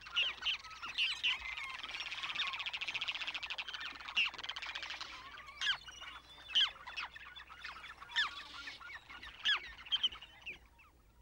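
Shorebirds calling: many short, sharp calls, with a fast chattering rattle about two to five seconds in.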